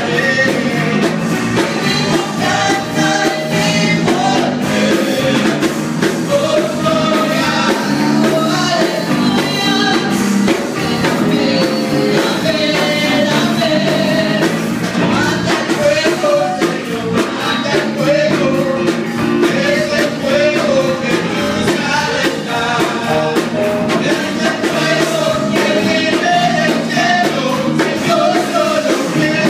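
Live worship music: voices singing into microphones over an electric bass guitar and band, played steadily and loud.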